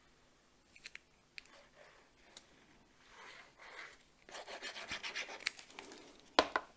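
Cardstock rubbing and sliding against a cutting mat as paper panels are handled, starting about four seconds in after a few faint clicks while liquid glue is run around a kraft paper square, and ending in one sharp knock.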